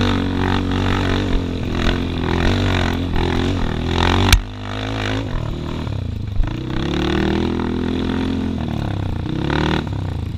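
Yamaha X-Ride single-cylinder four-stroke automatic scooter engine running under varying throttle on a rough trail, its pitch wavering with the bumps. A sharp knock comes about four seconds in, after which the engine briefly drops back; later it revs up and falls away again near the end.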